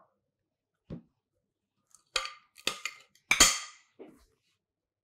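A few short clatters and knocks of kitchen utensils and dishes being handled: a soft knock about a second in, then a quick cluster of sharper clinks, the loudest about three and a half seconds in.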